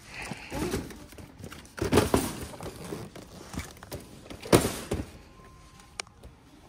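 Cardboard toy boxes being moved and stacked into a shopping cart: three bouts of scraping and thudding, the loudest about two seconds in and again near the middle, then a single sharp click near the end.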